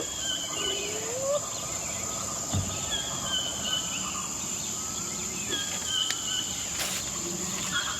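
Jungle ambience: a steady high insect drone with scattered short animal chirps and calls over it.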